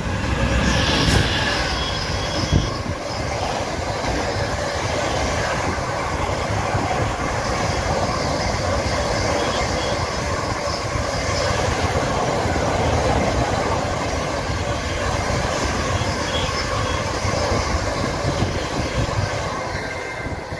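Train running along the track: a steady rumble of wheels on rails, with two sharp clanks in the first few seconds.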